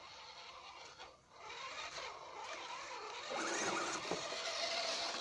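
Electric motor and geared drivetrain of an RC scale crawler whining as the truck drives over a dirt trail, growing louder about three seconds in as it comes closer.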